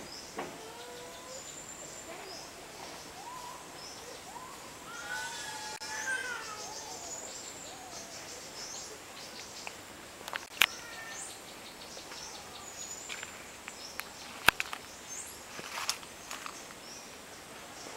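Birds calling in rainforest: a steady chorus of short high chirps and whistles, with one longer pitched call about five seconds in. Two sharp clicks, about ten and fourteen seconds in, are the loudest sounds.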